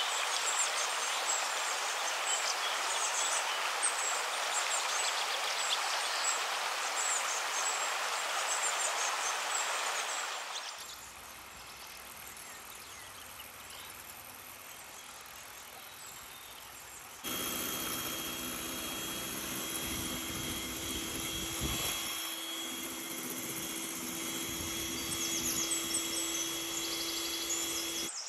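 Steady outdoor hiss with birds chirping for the first ten seconds or so, then a quieter stretch. From about two-thirds of the way in, an electric hand mixer's motor whirs steadily as its beaters whip egg whites to stiff peaks.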